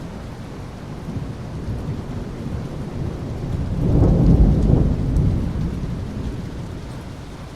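Thunderstorm: steady rain with a roll of thunder that swells about three seconds in, peaks around four to five seconds and rumbles away.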